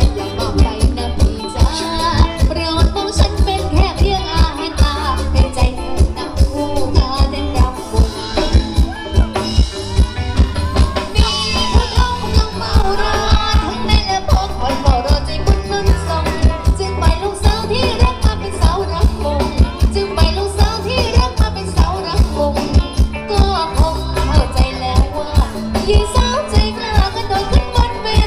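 Live Thai ramwong dance band playing loudly, with singing over a steady, heavy beat of about two hits a second.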